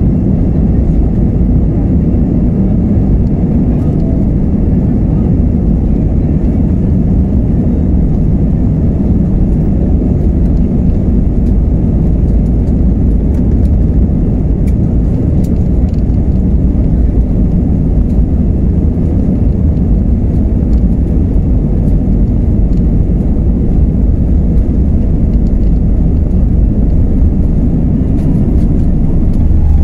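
Airbus A320 jet engines at takeoff power heard from inside the cabin over the wing during the takeoff roll: a loud, steady low roar with runway rumble. The deep rumble swells near the end as the aircraft rotates for liftoff.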